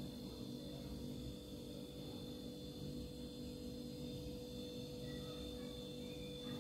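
Quiet, steady hum with a faint high-pitched whine running under it: room tone.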